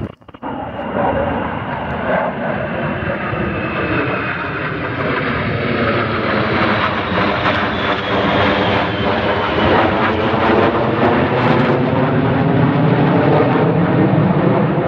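Jet noise from a formation of four fighter jets flying over, growing steadily louder, with a whooshing sweep in the pitch as they pass. There is a brief dip in the sound right at the start.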